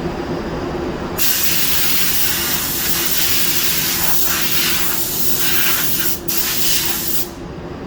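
Compressed air hissing steadily from a nozzle in a powder coating shop. It starts about a second in, breaks briefly just after six seconds, and cuts off near the end. A steady low shop hum runs underneath.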